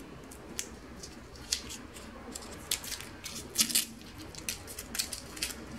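Foil wrapper of a fish stock cube being peeled open by hand: light, irregular crinkling and crackling, loudest a little past halfway.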